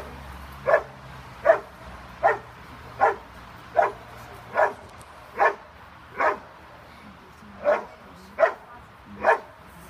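A dog barking steadily, about one bark every 0.8 seconds, with one longer pause about two-thirds of the way through. It is holding and barking at a sleeved helper in a hide: the bark-and-hold (Verbellen) exercise of protection-sport training.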